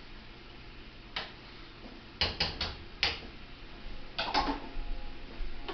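Kitchen clatter of utensils and dishes being handled: a single click, then a quick run of four sharp knocks about two seconds in, and two more near the four-second mark with a short metallic ring.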